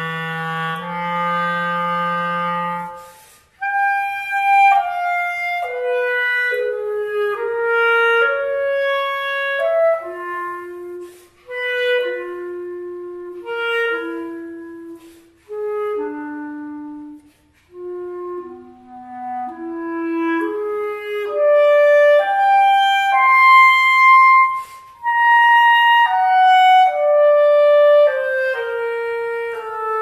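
Solo clarinet: a long held low note, then after a short break a string of short, birdsong-like notes leaping up and down, broken by a few brief pauses. The line climbs to a high note about two-thirds of the way through and steps back down.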